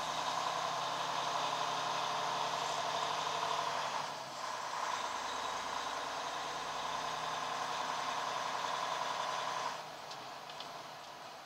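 Semi truck's diesel engine running as the truck rolls slowly, heard from inside the cab. It dips briefly about four seconds in and turns noticeably quieter near the end.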